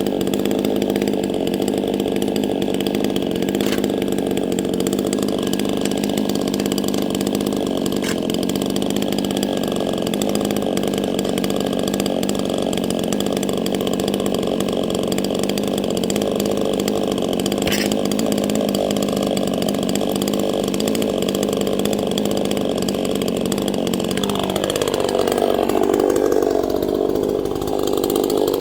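Neotec NCS6800 68cc two-stroke chainsaw running steadily. About 24 seconds in, its pitch drops and then climbs back up.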